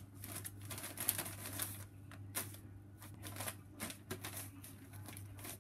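Wrapping paper crinkling and rustling in quick, irregular bursts as a kitten paws, bites and pulls at a roll of it.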